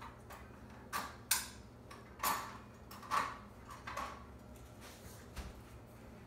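Kitchen utensils being handled at a counter: about half a dozen short clicks and clinks, spread irregularly over a few seconds.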